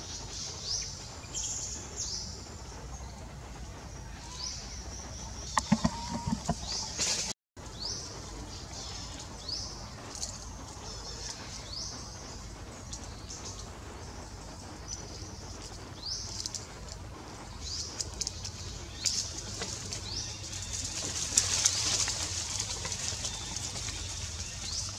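Forest birds chirping, short high sweeping calls repeating every second or two. About six seconds in there is a brief lower call with a few sharp clicks, and near the end a louder stretch of high hiss.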